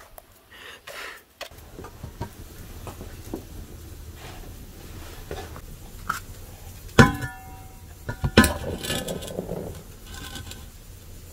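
Two sharp knocks against an enamel basin, each ringing briefly, about seven and eight and a half seconds in. They are followed by the soft hiss of flour poured from a clay pot into the basin.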